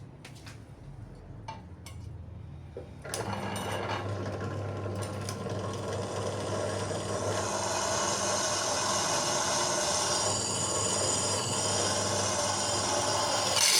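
A few light clicks, then an electric power tool starts about three seconds in and runs steadily with a humming motor and a rasping working noise, growing slightly louder.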